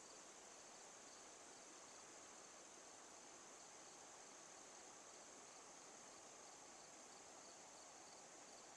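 Near silence: faint outdoor background with a steady high-pitched hiss.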